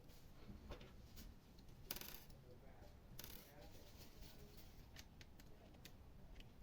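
Faint, scattered small clicks and light taps of hard parts being handled, with two short hissing scrapes about two and three seconds in.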